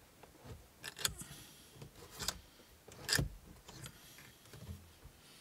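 Jaguar XKR instrument cluster being rocked and pulled out of the dashboard: a few sharp clicks and knocks, the loudest a little over three seconds in.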